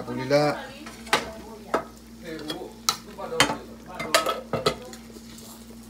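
A spoon stirring soup in a large metal pot, knocking sharply against the pot about six times over the few seconds.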